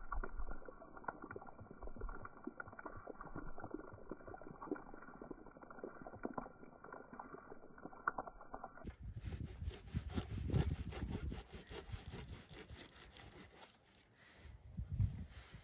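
Steak frying in oil in a frying pan, a steady crackling sizzle. About nine seconds in it gives way to a plastic knife sawing through the cooked steak on a paper plate, with rough rubbing strokes.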